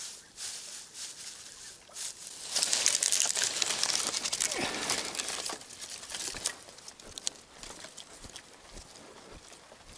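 Close crinkling and rustling, a dense crackle of small clicks lasting about three seconds from a couple of seconds in, then thinning to scattered ticks.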